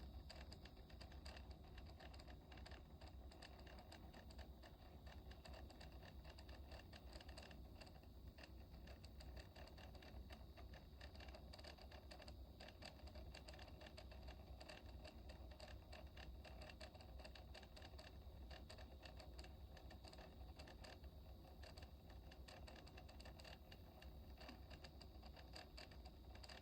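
Near silence: faint room tone with a dense patter of tiny ticks and scratches throughout.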